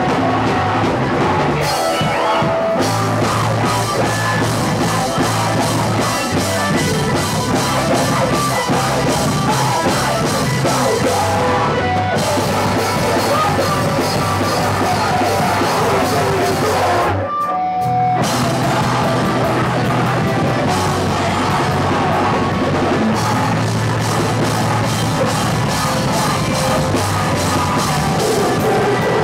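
Screamo band playing live and loud: distorted electric guitars, bass guitar and a pounding drum kit, with yelled vocals. A little past halfway the whole band stops dead for about half a second, then crashes back in.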